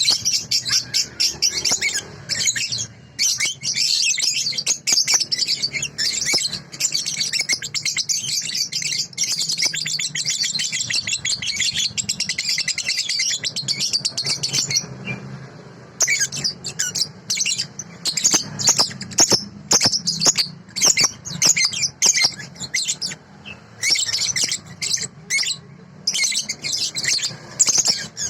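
A young cage bird (balibu) singing a fast, high, continuous chatter in long runs, with a break about halfway through before shorter runs resume, recorded as a masteran, a song for training other birds.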